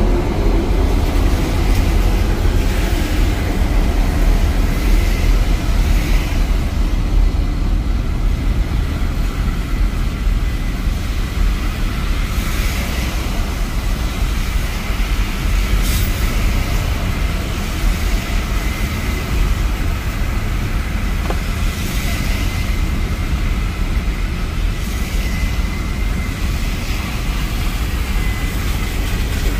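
Steady low rumble of a car moving slowly through traffic on wet, flooded roads, with an even hiss of tyres and water over it.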